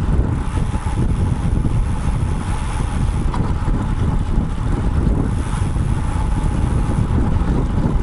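Wind buffeting the microphone of a bike-mounted action camera on a moving road bike: a steady low rumble with a faint steady hum above it.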